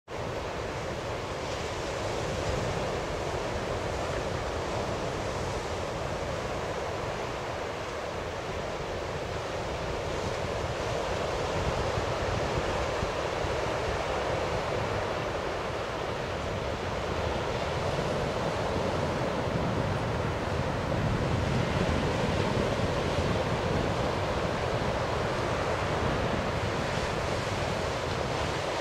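Sea surf washing onto a sandy beach: a steady rush of waves, with wind buffeting the microphone.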